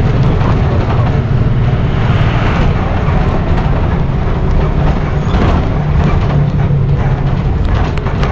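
Diesel engine of a Volkswagen 17.210 city bus running under way, heard from inside the passenger cabin: a steady low hum over road noise, with light rattles from the body.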